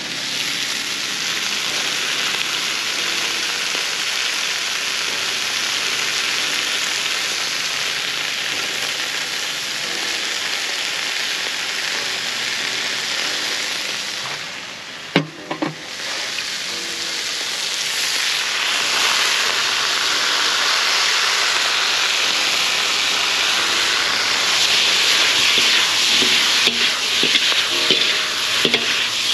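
Food sizzling and frying in a hot wok: a steady hiss that dips briefly about halfway, with a sharp clink, then comes back stronger. Near the end, metal utensils scrape and tick against the wok as the broccoli is stirred.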